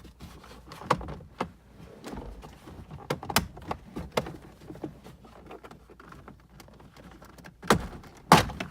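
Plastic steering column cover halves being pried apart: a run of clicks and snaps from the trim clips letting go, with two louder snaps near the end.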